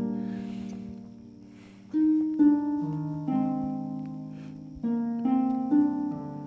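Soft background score of slow plucked or struck chords, harp- or piano-like, each chord ringing and fading before the next.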